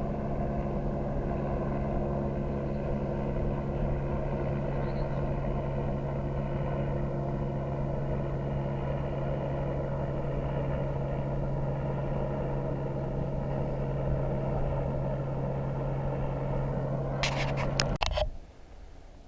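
A motor running at a steady, unchanging pitch. Near the end come a few sharp clicks, and then it cuts off abruptly.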